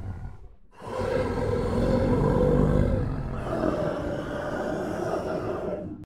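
Monster snoring sound effect: a brief pause for breath about half a second in, then one long, loud snore. It steps slightly higher in pitch around the middle and cuts off at the end.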